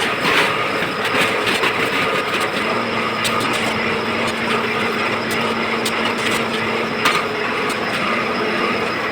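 Manual blow moulding machine for plastic drinkers running, a steady mechanical noise with a low hum that sets in about three seconds in and a few sharp clicks.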